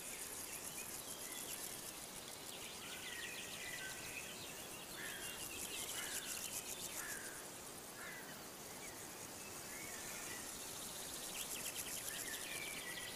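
Faint summer outdoor ambience: birds chirping in short, repeated calls over insects trilling steadily in rapid pulses.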